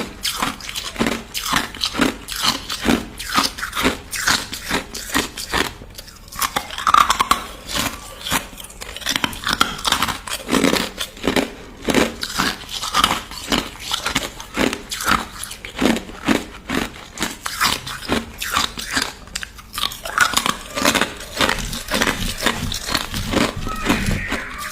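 Crushed ice being bitten and chewed close to the microphone: rapid, crisp crunches several times a second, with brief pauses between mouthfuls.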